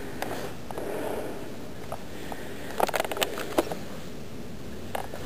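A handful of short sharp clicks and crackles, bunched about three seconds in and again near the end, over a steady hiss.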